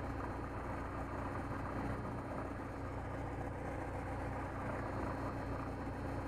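Super Decathlon's four-cylinder aircraft engine idling steadily, heard from inside the cockpit, with a constant hum.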